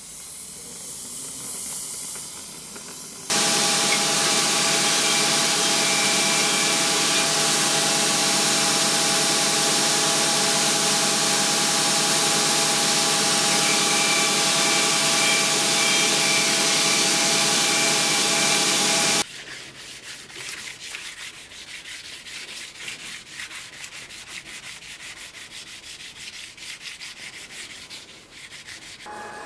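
Gas torch hissing as its flame plays on the steel blade. About three seconds in, a belt grinder comes in loud and steady with a whine of several tones. At about nineteen seconds it stops suddenly, giving way to quick repeated hand-rubbing strokes along the blade.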